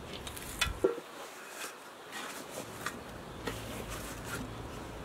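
Two light clinks of a ladle against a large metal cooking pot, followed by faint scattered handling sounds.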